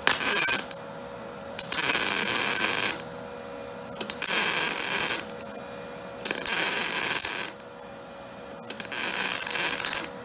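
MIG welder arc running in five short stitch-weld bursts of about a second each, with brief pauses between them, welding up a tear in a steel radiator core support.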